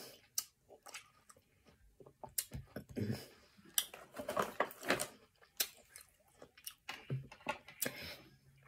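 Close-up wet chewing of juicy watermelon chunks, with squishy mouth sounds and many short sharp clicks and smacks.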